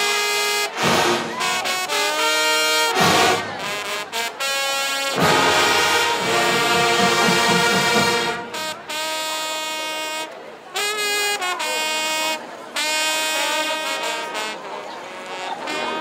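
Marching band brass section playing loud sustained chords, with a few sharp percussion hits in the first five seconds.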